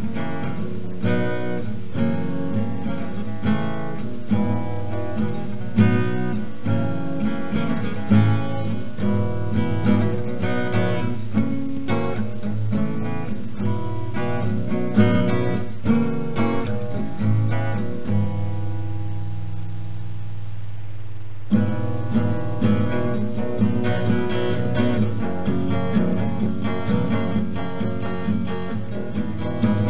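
Background music: acoustic guitar, picked and strummed, with one chord held for a few seconds about two-thirds of the way through before the playing resumes.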